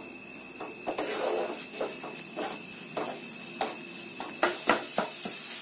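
Wooden spatula stirring and scraping egg bhurji around a nonstick frying pan, in a series of short strokes roughly every half second to a second.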